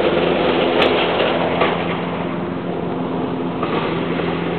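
A small engine running steadily, with a short click about a second in.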